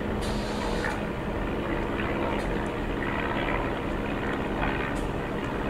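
Single-engine propeller biplane flying overhead, its piston engine giving a steady drone.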